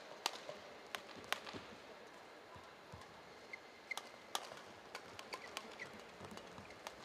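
Badminton rally: sharp cracks of rackets striking the shuttlecock at irregular intervals, with short squeaks of court shoes on the mat and a low steady hall murmur.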